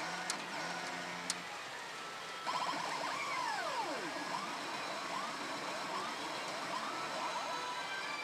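Gundam Unicorn pachinko machine playing electronic effects for an on-screen sequence, over the steady din of a pachinko parlor. About two and a half seconds in, a louder layer starts with swooping tones that fall and rise again several times, siren-like.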